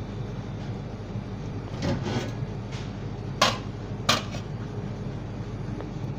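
Two sharp utensil knocks, under a second apart, a little past the middle, with a brief scrape a couple of seconds in, as tomato sauce is spooned and spread over a thin pizza base; a steady low hum of kitchen equipment underneath.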